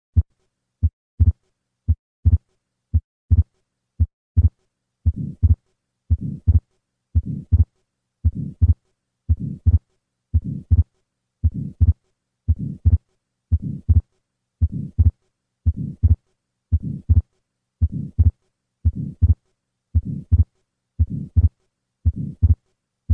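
Heart sounds of an atrial septal defect heard through a stethoscope: steady lub-dub beats about once a second. From about five seconds in, a soft systolic murmur fills the gap after each first sound. This is the flow murmur across the pulmonic valve that goes with the defect's fixed split second heart sound.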